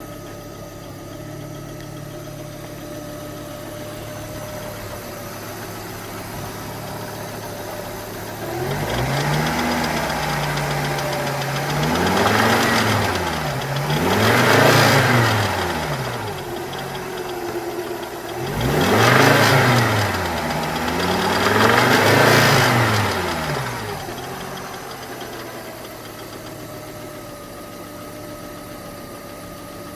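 1995 Volvo 850 2.4 inline five-cylinder engine with a rod knock from cylinder 3, where a rod bearing shell had twisted out of place. It idles, is revved up and down about four times, then settles back to idle.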